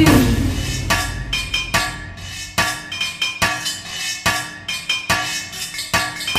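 Instrumental interlude of a Telugu song, without singing: a run of sharp percussive strikes, about two or three a second, each with a short chiming ring.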